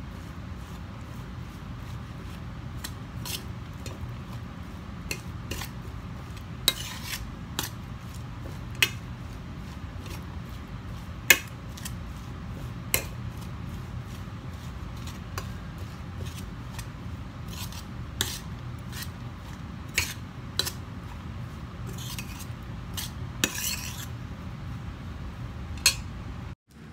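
Metal spoon stirring a moist minced-meat and chopped-greens dumpling filling in a stainless steel bowl, knocking and scraping the bowl's side in irregular sharp clinks over a steady low hum.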